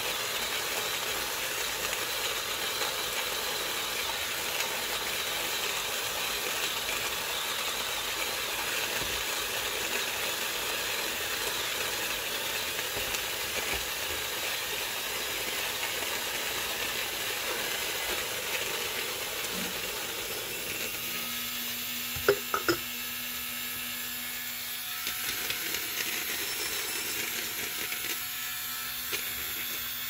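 Lido 3 hand coffee grinder driven by a Tacklife cordless screwdriver motor, its burrs grinding coffee beans with a steady gritty whirr. About twenty seconds in the grinding noise thins and a steady motor hum takes over, the sign that the beans have run through and the burrs are spinning nearly empty; two sharp clicks follow shortly after.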